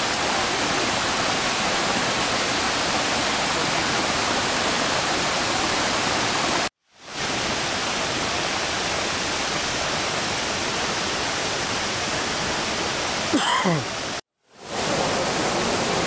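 Steady rushing of the Girlevik waterfall's falling water. It cuts out briefly twice, and a short sliding call comes just before the second break.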